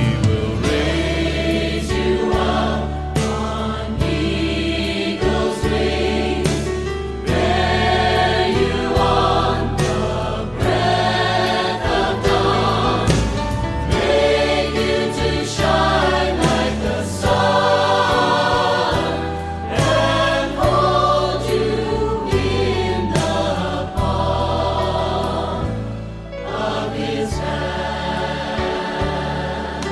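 Choral music: a choir singing over a steady bass line, in a gospel style.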